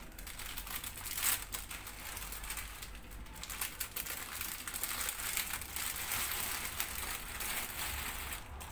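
Plastic wrapper of a packet of ladyfinger biscuits crinkling and crackling as it is handled and opened, with a few sharper crackles along the way.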